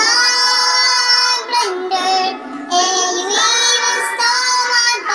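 High-pitched singing over music, with long held notes that waver slightly in pitch and break off about every second or two.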